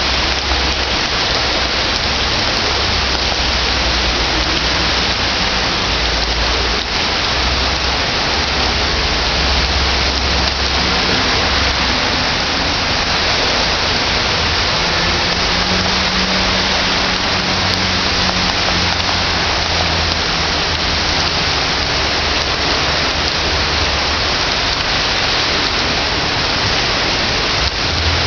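Heavy downpour: a loud, steady hiss of rain falling on a street and pavement. Cars drive through the floodwater in the road, with a low rumble under the rain.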